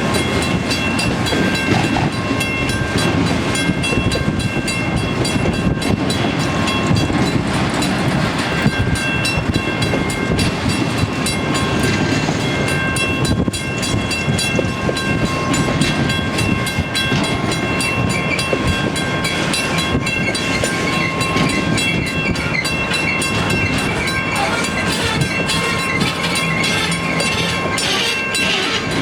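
Freight train cars rolling past: a steady rumble and clatter of steel wheels on the rails. Steady high ringing tones sound over it, with short breaks.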